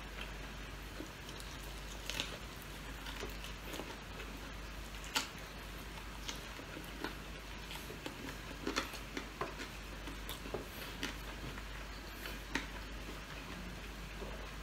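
Quiet eating sounds of a person eating chicken with bare hands: chewing, with scattered small clicks and wet smacks of mouth and fingers on the meat.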